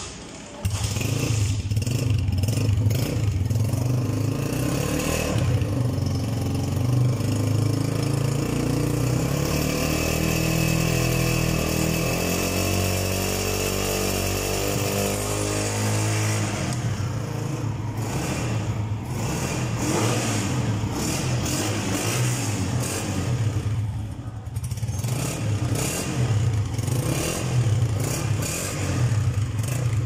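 A Honda CG 125's air-cooled single-cylinder four-stroke engine starts about half a second in and then runs steadily. Its pitch drifts up and down for a while midway.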